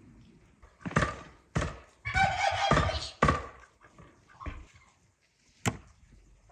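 A few sharp knocks, the first about a second in and the last near the end, with a longer rough noisy sound in the middle.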